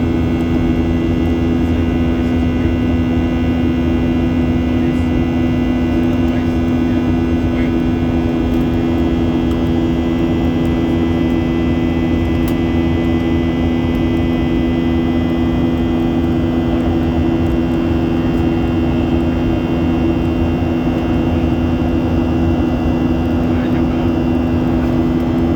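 Steady cabin drone of a Boeing 737-800 in flight, heard from inside the cabin: its CFM56-7B jet engines and the airflow give a constant rushing noise with two strong low hums and fainter higher steady tones.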